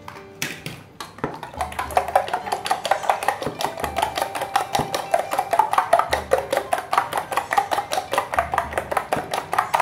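Metal spoon beating raw eggs in a stainless steel bowl, knocking against the bowl's side in a rapid, even clicking of about five or six strokes a second, with a light metallic ring, starting about a second in.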